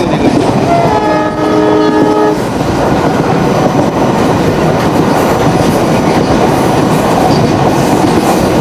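Train horn sounding one steady chord for about a second and a half, starting about a second in, over the continuous rumble and wheel clatter of a moving passenger train.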